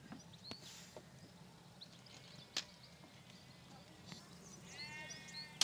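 Faint outdoor quiet with a few small bird chirps and a couple of sharp clicks, one about two and a half seconds in. A sheep bleats once, faintly, near the end.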